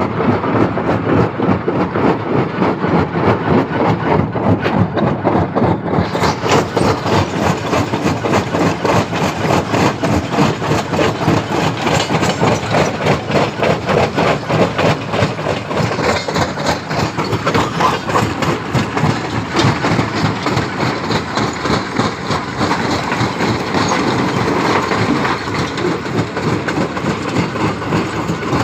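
Stone crusher running with a dense, continuous rattle of rock being broken and knocked about. It turns brighter and harsher about six seconds in.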